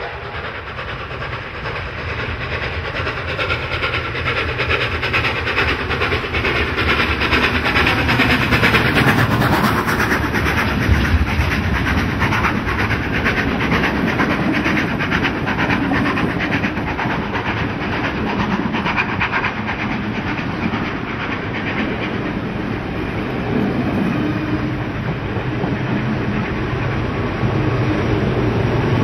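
Steam locomotive 3237, a New South Wales C32 class 4-6-0, working past under steam, growing louder over the first several seconds as it nears and passes. Its carriages then roll by close up with a steady clickety-clack of wheels over the rail joints.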